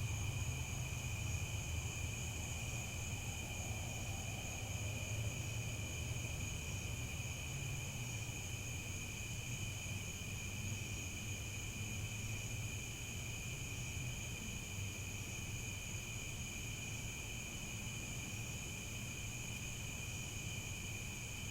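Crickets chirping in a continuous, steady chorus of high trills, over a low steady rumble.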